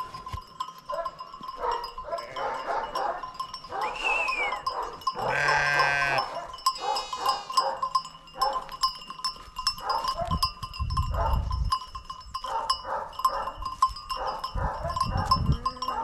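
A flock of sheep bleating, with many short overlapping calls and one loud, drawn-out bleat about five seconds in, along with a steady clinking of bells.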